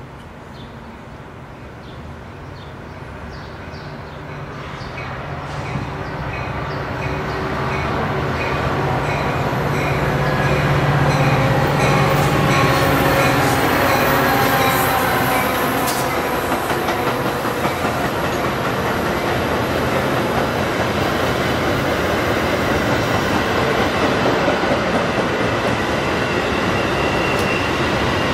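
Metra commuter train's diesel locomotive approaching and passing close by. The engine grows louder over the first ten seconds or so and drops in pitch as it goes past. The bilevel coaches then roll by with a steady rumble and wheel clicks over the rail joints. An evenly spaced ringing is heard in the first few seconds.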